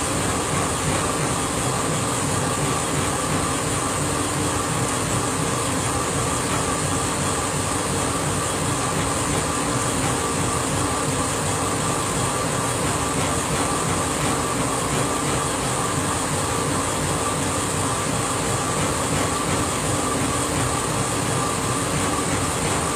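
Laser engraver running mid-engraving: a steady, unbroken rush of air from its air assist and exhaust blower, with a constant machine hum.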